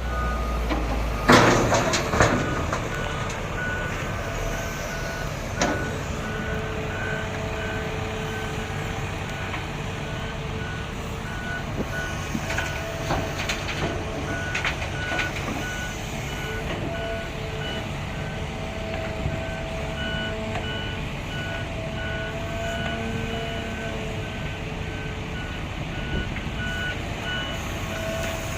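Reversing alarm on a road construction vehicle beeping steadily, about once a second, over the low running of a diesel engine. A loud clank sounds about a second and a half in.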